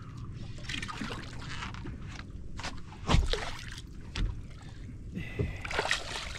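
A hooked samson fish splashing at the surface beside a boat's hull, getting busier near the end, over steady wind and water noise. A heavy thump about three seconds in is the loudest sound.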